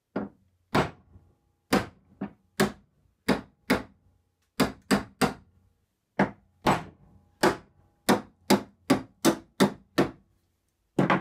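A mallet striking a screwdriver blade set into the end grain of a board, about twenty sharp blows at an uneven pace, roughly two a second with short pauses, some leaving a faint ring. This drives the blade in to split the board along its natural grain and get straight-grained stock for a chair spindle.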